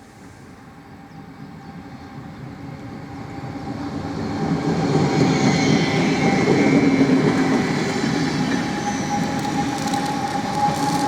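Electric S-Bahn multiple unit, a DB class 424, approaching and running past, growing louder to a peak about halfway through and easing slightly after. A steady whine carries through the rumble, with brief high wheel squeals about halfway and again near the end.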